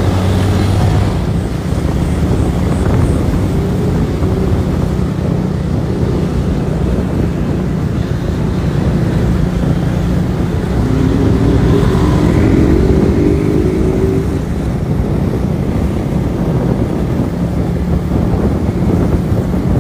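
A motorcycle riding along a street at a steady speed: its engine hums steadily under heavy wind noise on the microphone. A faint rising engine note comes in briefly in the middle.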